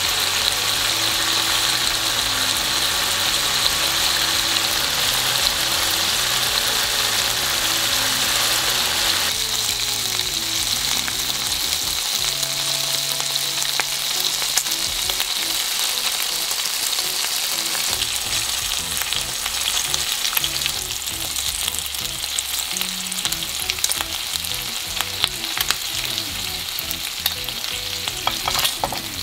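Soy-and-ginger-marinated pork loin slices sizzling steadily in a nonstick frying pan over low heat; the sizzle eases a little about nine seconds in. In the last few seconds, sharp clicks of chopsticks against the pan join it as the slices are turned.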